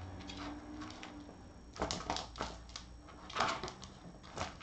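Plastic ring-shaped ball-track cat toy clicking and rattling as a cat bats at it, the ball rolling in its track: a run of quick clicks about two seconds in, a louder run around three and a half seconds, and a short burst near the end.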